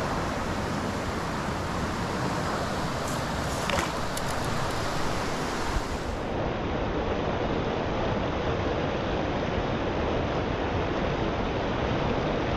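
Fast creek water running after rain: a steady rush of moving water, with a few small clicks about four seconds in.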